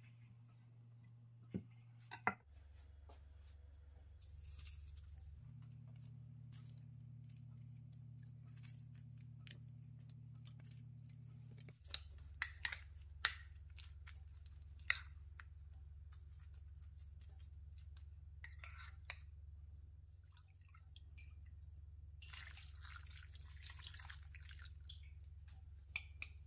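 Light kitchen handling sounds: sharp clicks and taps as tofu slices and toppings are set into a wok and a ceramic bowl is knocked and scraped while a chunky green-onion sauce is tipped out of it. A low steady hum runs underneath.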